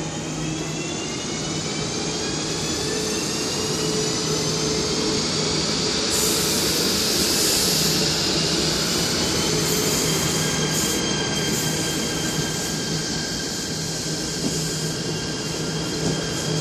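KTM ETS Class 93 electric train pulling away, its traction motors giving a whine of several tones that rise in pitch as it gathers speed, over a steady rumble of the carriages rolling past. A high hiss joins about six seconds in.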